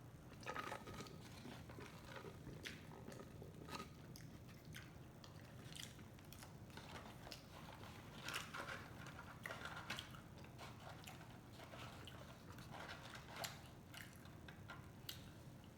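Close-up eating sounds: a person biting and chewing Chick-fil-A fried chicken and fries, with faint, irregular soft crunches and mouth clicks.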